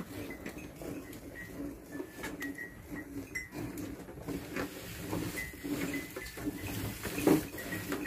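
Hand milking of a cow: streams of milk squirting into a steel bucket of frothy milk in a steady rhythm. There is a louder knock about seven seconds in.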